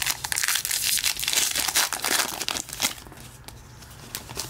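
An O-Pee-Chee hockey card pack wrapper being torn open and crinkled by hand: a dense crackling that dies down after about three seconds.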